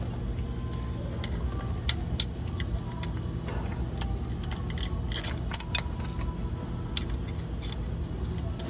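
Light metallic clicks and taps of a small wrench and parts being handled against engine metal, thickest in a quick cluster just past halfway, over a steady low hum.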